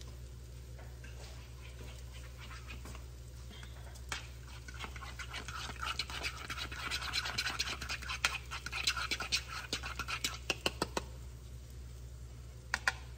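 Metal fork whisking eggs in a plastic bowl: rapid clicking and scraping that starts about four seconds in and stops about eleven seconds in, followed by two sharp taps near the end. A low steady hum runs underneath.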